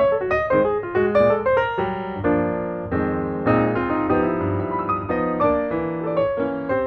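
Background piano music: a run of quick single notes, then fuller held chords in the middle.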